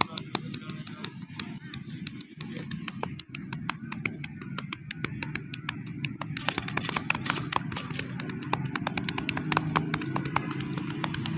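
Massage hand strokes on a back: quick sharp slaps or taps, a few a second at first, then faster and more regular about halfway through, over a steady low background rumble.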